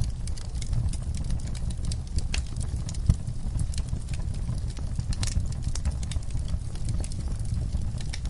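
Campfire burning, its wood crackling and popping in quick, irregular snaps over a steady low rumble, with one louder pop about three seconds in.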